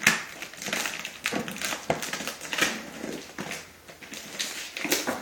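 Packaging rustling and crinkling as a parcel is unpacked by hand, with irregular swishes and small knocks.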